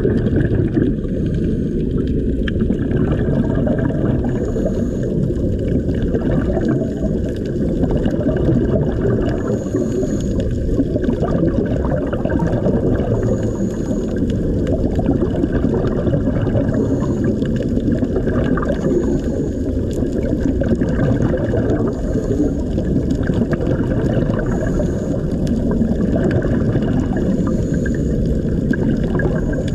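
Underwater sound of water and air bubbles: a steady, loud, low gurgling rush that swells a little every two to three seconds.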